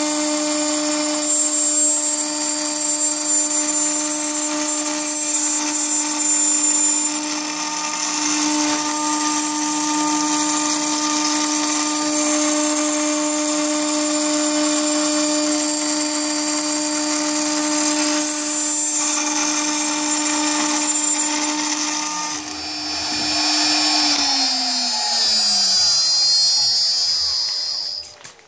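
CNC router spindle at 18,000 rpm with a single-flute carbide end mill milling aluminium plate: a steady high whine over a hissing cutting noise. About 22 seconds in the cutting noise stops, and a couple of seconds later the spindle winds down, its pitch falling.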